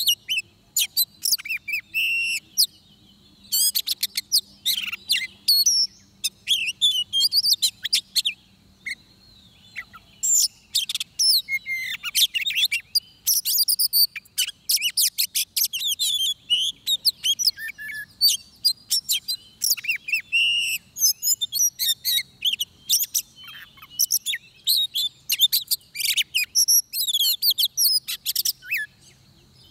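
Oriental magpie-robin singing a long, varied song of clear whistles and rapid chirps, broken by brief pauses.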